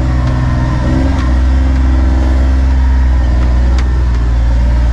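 Kawasaki Mule Pro FXR side-by-side's three-cylinder engine running steadily as the machine drives along a rough trail, with a few light knocks over the engine hum.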